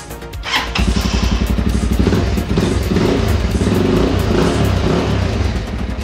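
Motorcycle engine started on the electric starter, catching within about a second and then running steadily. The kill switch has been released by the Smart ID fob, so the engine is allowed to start.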